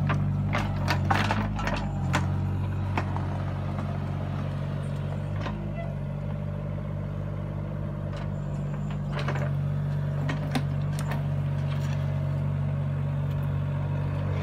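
Mini excavator's diesel engine running steadily while its bucket pushes and scrapes soil and stones to fill a trench. Scattered knocks and clatter of stones and the bucket come in a cluster near the start and again about two-thirds through.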